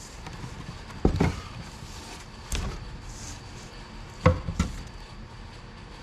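Wooden beehive boxes and parts knocking together as they are lifted out and set down: a few short wooden knocks, about a second in, again near the middle, and a quick pair a little after four seconds.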